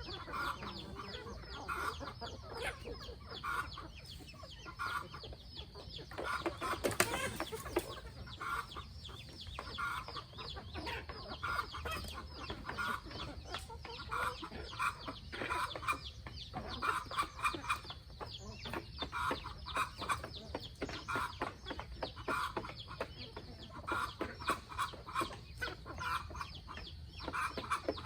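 A flock of free-range chickens clucking, with many short calls overlapping, and frequent small clicks and scratches in among them. A louder rustling burst comes about seven seconds in.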